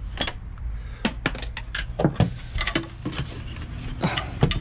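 Irregular clicks and knocks of a bike helmet's plastic shell and buckles being handled and hung on a metal box-section rail, over a low steady hum.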